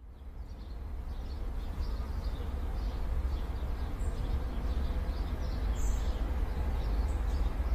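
Outdoor ambience fading in: a steady low rumble with scattered faint bird chirps over it.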